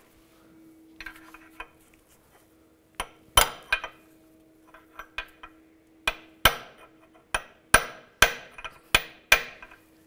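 Hammer striking a large punch against the back of a CV axle's inner joint, driving the axle past its retaining C-clip out of the transmission. After a few light taps come about ten sharp metallic blows with a ringing tail, starting about three seconds in and coming faster near the end.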